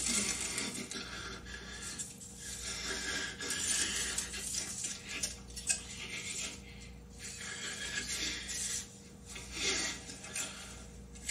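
Film soundtrack without dialogue: sparse sound design of irregular noisy swells that come and go, with a sharp click about six seconds in.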